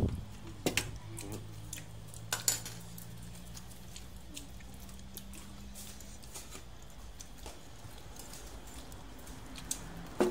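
A few light clinks and knocks of crockery and cutlery on a table, the clearest about half a second and two and a half seconds in, over a faint steady low hum.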